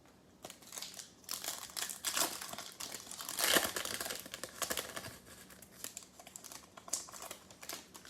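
Plastic-foil trading-card pack wrapper being torn open and crinkled by hand: a quick run of crackles and rustles, loudest about three and a half seconds in.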